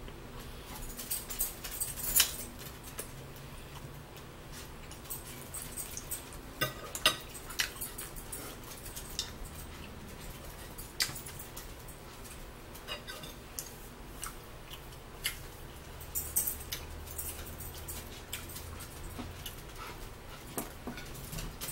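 Fork clicking and scraping on a plate in scattered, irregular strokes, with eating sounds between them.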